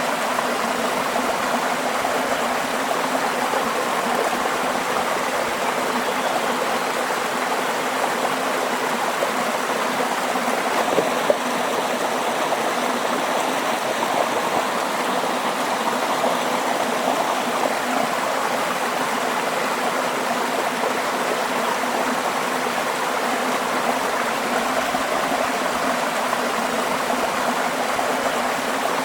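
Running water of a stream flowing steadily, an even continuous rush.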